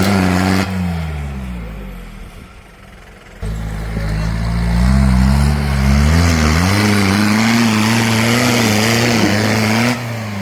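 Mahindra off-road vehicle's engine revving hard under load, its pitch wavering. The sound drops away suddenly within the first second, comes back just as suddenly after about three seconds, and near the end the revs fall off.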